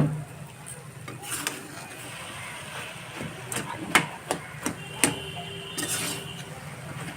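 Metal spatula stirring and turning vegetables in a kadai, knocking and scraping irregularly against the pan.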